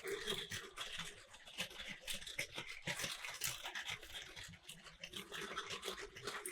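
Battery-powered Plarail toy train running on plastic track: a small electric motor whirring amid rapid, irregular clicking and rattling of plastic.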